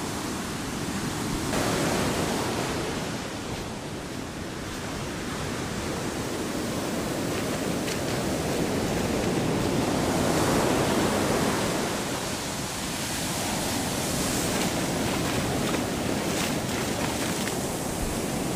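Ocean surf washing onto a beach: a steady rush of waves that swells louder about two seconds in and again around ten seconds in, then eases.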